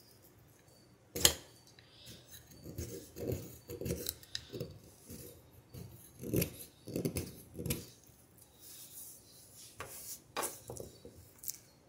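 Butter knife being drawn by hand across a handheld sharpening stone: about ten separate scraping strokes of the blade. There is a sharp click about a second in, the loudest sound, and a few lighter clicks near the end.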